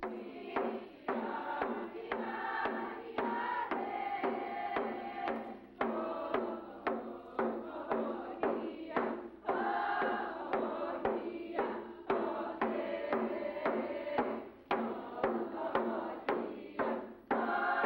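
Athabascan drum song: a group of voices singing a chant over hand-held frame drums beaten in a steady beat.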